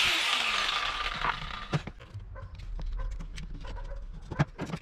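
Angle grinder switched off after grinding a plywood edge, its motor whine falling in pitch as the disc spins down. A few sharp knocks follow as wood and tools are handled on the bench, the loudest near the end.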